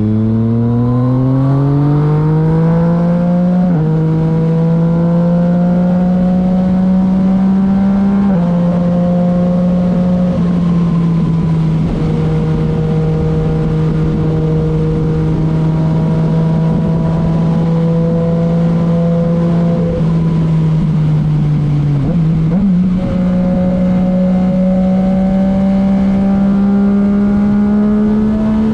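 Yamaha MT-09's three-cylinder engine through a titanium Akrapovic exhaust, accelerating hard and rising in pitch, with sudden quickshifter upshifts about four and eight seconds in where the pitch drops without a pause. It then holds a near-steady note, breaks briefly about 22 seconds in, and climbs slowly again.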